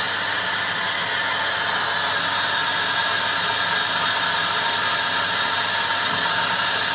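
Metal lathe roughing a 316 stainless steel hollow bar: the spindle turning at about 440 RPM while the tool hogs off about 1 mm per pass at a heavy feed, with a steady hiss and a high whine.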